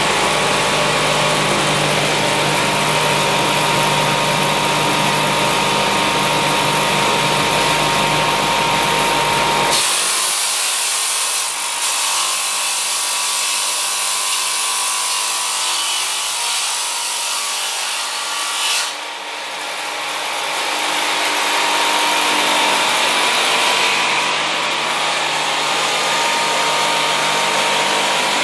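TsDK5-3 multi-rip circular saw running loud and steady with a held tone from the spinning blades. About ten seconds in the deep hum drops away and a brighter, hissing cutting noise takes over as a board is ripped lengthwise into several strips at once.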